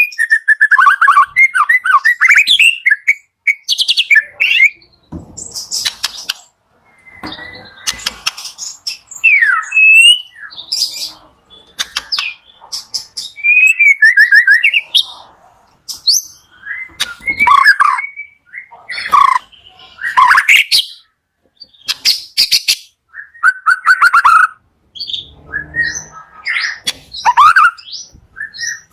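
White-rumped shama (murai batu) singing a loud, varied song: clear whistled glides and fast trills mixed with harsh chattering notes, phrase after phrase with short pauses, played as a lure to prompt a caged murai to sing.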